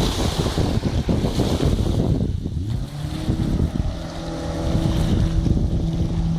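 Inflatable boat under way with the Mercury 40 jet outboard running. Wind buffets the microphone and water rushes against the hull. About halfway in, the engine's steady hum comes to the fore, rising a little and then holding at a constant pitch.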